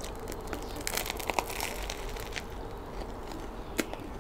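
Crusty baguette crust crackling and crunching as a bite is taken and chewed. The crackles come scattered, busiest about a second in, with one sharp crack near the end.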